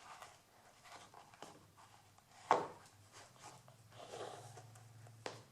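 Stiletto heel of a black leather court shoe striking a parquet floor: one sharp click about halfway through and a lighter one near the end, with soft scuffing of the shoe in between.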